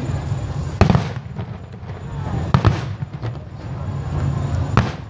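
Aerial fireworks bursting: three loud bangs about two seconds apart over a steady low background rumble.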